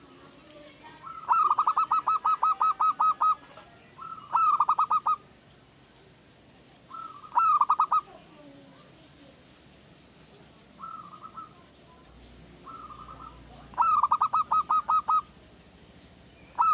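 Male zebra dove (perkutut) singing: several bouts of rapid, evenly spaced staccato coos, the first and longest near the start, with pauses and a few softer single notes between. It is a newly kept bird still learning to sing.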